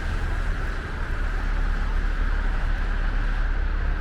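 Steady street noise, mostly a low rumble of city traffic, with no distinct events.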